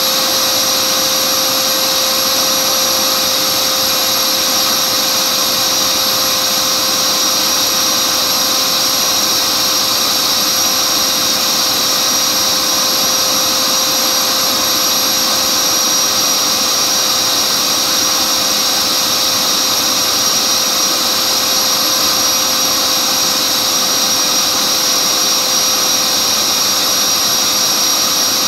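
Dynamax electric ducted fan, driven by a TP-5870 530kv brushless motor, running steadily at about 31,000 rpm under full load of around 8.9 kW: a loud, even, high-pitched whine and rush of air that holds its pitch throughout.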